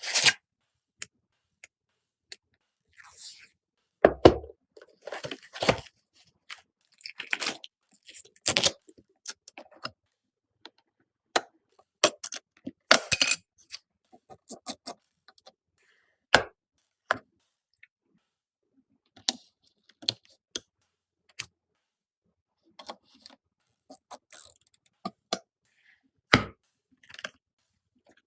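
Computer parts being handled and fitted together during a PC build: scattered clicks, knocks and short rustles, with silence between them.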